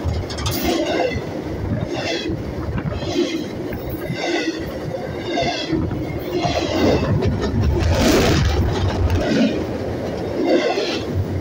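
Train cars rolling by at close range: a steady heavy rumble of wheels on rail, with a high squeal that recurs about once a second and a louder rush about eight seconds in.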